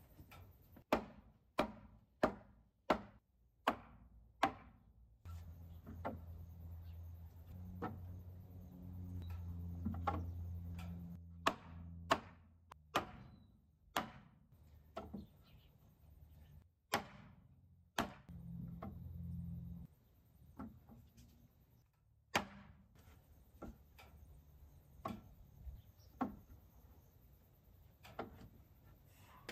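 A long-handled hammer knocking the timber frame of a tank stand down to level, with sharp wooden knocks. There is a quick run of about seven blows in the first few seconds, then slower, scattered strikes. A low hum comes and goes underneath.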